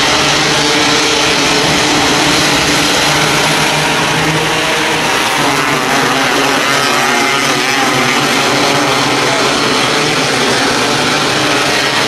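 Pack of 270 micro sprint race cars lapping a dirt oval, their engines running hard together in one steady, loud sound.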